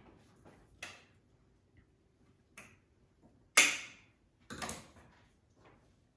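Wire cutters snipping the wire stems of decorative eggs: a few short, sharp clicks about a second apart, the loudest about three and a half seconds in.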